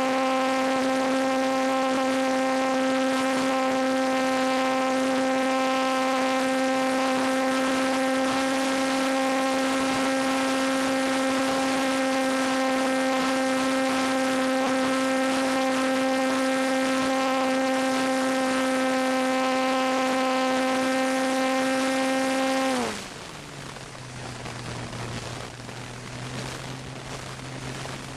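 Parkzone T-28 Trojan's electric motor and propeller whining steadily at high throttle, heard from the plane's onboard camera. Near the end the pitch drops sharply and the sound gets quieter as the throttle is pulled back, leaving a lower, steady whine.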